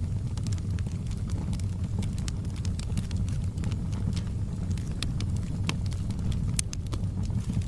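Fire crackling: a steady low rumble of flames with irregular sharp pops and snaps scattered throughout.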